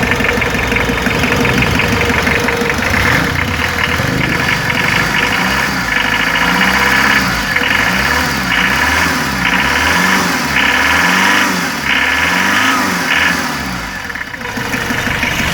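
Mitsubishi 4D56 four-cylinder diesel engine idling with diesel knock, test-run after a new water pump and timing belt set. A regular pulsing about once a second comes into its sound partway through.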